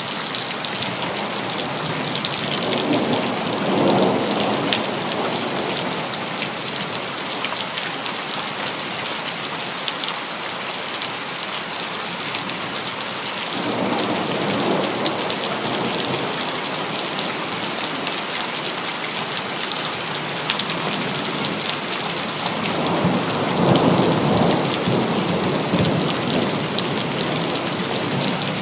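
Steady rain with three rolls of thunder: one about three seconds in, one around the middle, and a longer one near the end.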